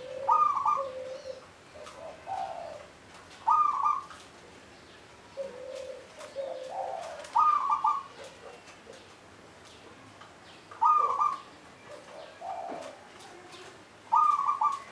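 Local zebra dove (perkutut lokal) cooing its song five times, about every three and a half seconds. Each phrase has a loud, higher clear note and lower, softer cooing notes.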